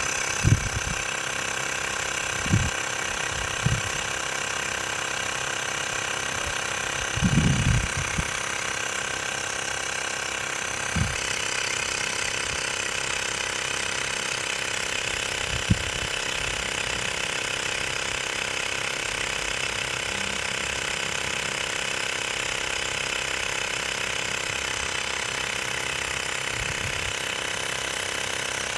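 Xiaomi Mi portable electric air compressor running steadily under load as it inflates a car tyre, near its preset 35 psi with the tyre at about 32 psi. Its tone shifts slightly about eleven seconds in, and a few low thumps sound in the first half.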